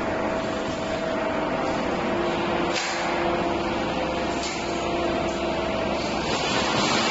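Steady machinery noise of a metal fabrication workshop: an even hiss and rumble with faint steady hums and a couple of faint clicks.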